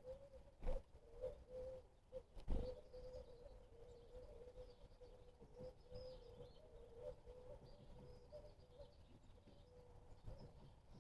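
Faint bird calls with a low wavering tone running under them, and two knocks: a small one under a second in and a louder one about two and a half seconds in.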